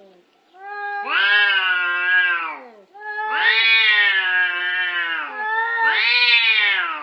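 A domestic cat caterwauling at another cat face to face: three long, drawn-out yowls, each rising and then falling in pitch, the warning cries of a standoff.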